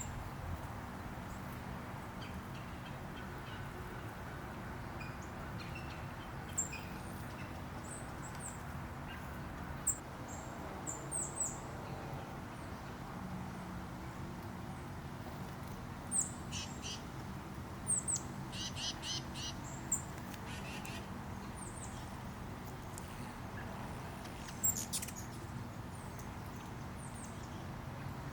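Hummingbirds giving short, high chips and twitters, with scattered single notes and a quick stuttering run of notes a little past the middle. Underneath is a steady hiss of rain.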